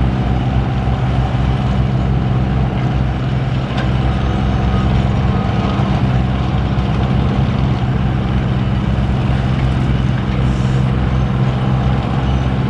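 Heavy diesel engine of earthmoving equipment running steadily at a constant pitch, as a mini excavator works dirt out of a dump truck.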